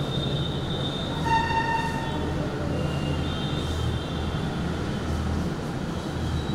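A steady low hum runs under short, high-pitched squeaks. The strongest squeak comes a little over a second in. Around three to four seconds in, a marker squeaks on a whiteboard as a letter is written.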